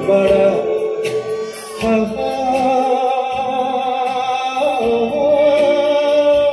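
A Bengali song with singing and a light beat, with long held notes through the middle and end.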